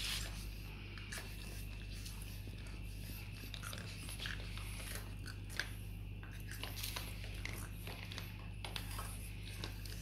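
Boston Terrier puppy nosing and mouthing at a plastic laundry basket and the clothes in it: scattered small clicks, scrapes and nibbling sounds over a steady low hum.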